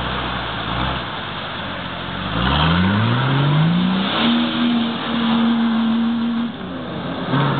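Off-road 4x4 SUV engine revving hard under load as it drives out of a mud-and-water pit and up a bank: the revs climb steeply about two and a half seconds in, hold high for a couple of seconds, then drop near the end.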